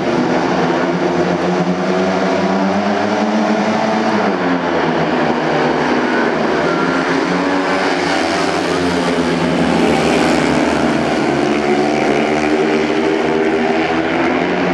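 A pack of speedway bikes, each with a 500 cc single-cylinder methanol engine, revving hard from the start and racing round the track. Several engine notes overlap, their pitch rising and falling with the throttle.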